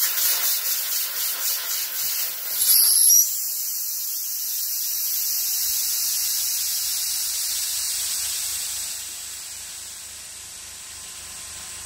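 Compressed air hissing out of the opened drain screw under a small airbrush compressor's air tank, blowing out the condensed water. It sputters for the first few seconds, gives a louder spurt about three seconds in, then settles into a steady hiss that drops lower near the end.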